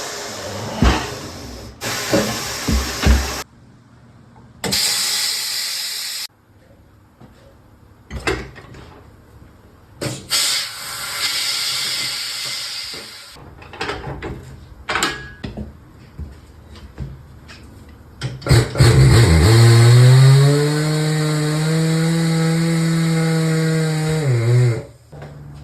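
Tire shop equipment at work: hissing bursts of compressed air and sharp knocks. Then an electric machine motor spins up, runs steady for about six seconds and winds down near the end.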